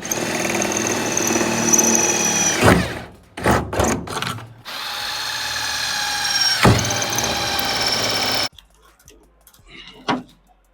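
Power drill running under load, with one steady run, a few short start-stop bursts, and then a second longer run. The motor's pitch sags briefly as the bit bites, and the drill cuts off suddenly near the end.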